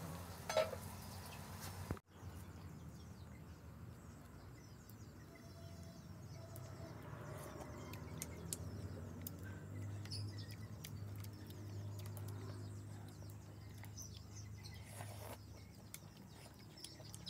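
Faint background sound: a low steady hum with scattered small ticks and a few faint high chirps, after a sudden break in the sound about two seconds in.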